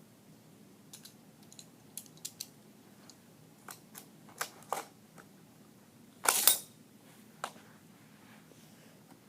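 Small hard toy cars clicking and knocking against each other and a surface, in a run of light taps. One louder clattering crash comes about six seconds in.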